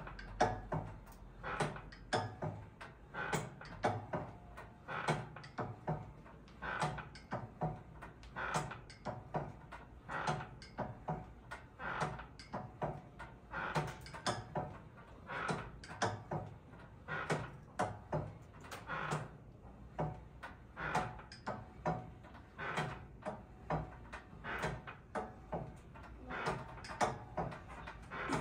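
Lying leg-curl machine worked through a set of about twenty reps: the weight stack and its cable and pulleys knock and slide in a steady repeating rhythm, a pair of sounds with each curl and return.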